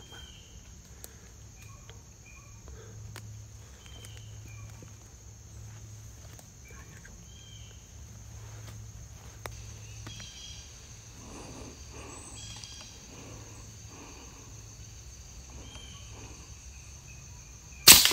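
A single sharp shot from a pre-charged pneumatic air rifle near the end, much louder than anything else. Underneath it is a steady high insect drone with scattered bird chirps.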